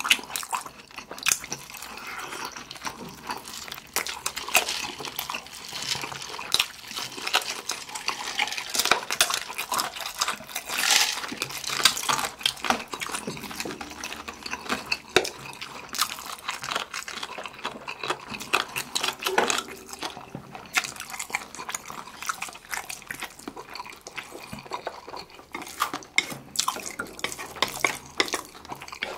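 Close-miked eating sounds from two people: wet chewing and lip-smacking on sauced fried chicken drumsticks, a dense run of small wet clicks, with black-bean noodles (Jjapaghetti) being slurped near the end.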